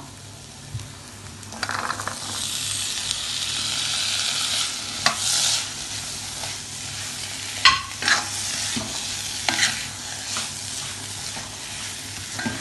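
Boiled chickpeas going into a hot pan of fried masala and sizzling, with the hiss strongest from about two seconds in. A steel spatula then stirs them through, scraping against the pan several times.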